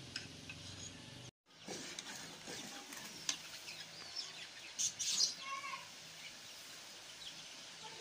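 Faint clinks and handling noises around a steel cooking pot and ladle, with birds chirping in the background.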